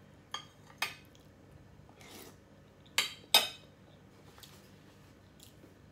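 A metal spoon clinking against a glass dish: four sharp ringing clinks, two in the first second and two more close together about three seconds in.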